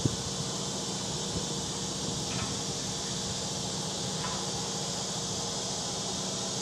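Front-load garbage truck's diesel engine running steadily with its hydraulics, under a constant hiss, as the lift forks are set into a dumpster. A single sharp knock right at the start and a couple of faint light clicks later on.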